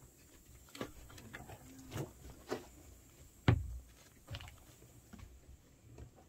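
Scattered light knocks and clatter, the loudest about three and a half seconds in, as an aluminium kettle is lifted by its handle and set down on a packed-earth floor.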